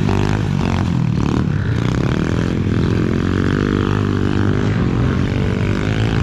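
Small motorcycle engine running under load, its pitch dipping about a second in and then climbing again as the throttle is worked.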